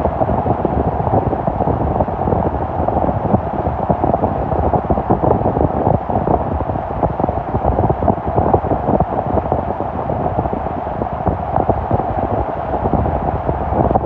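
Car rolling slowly over a road covered in small hail: a steady rush of tyre noise on the hail-covered pavement, mixed with wind on a microphone held outside the car.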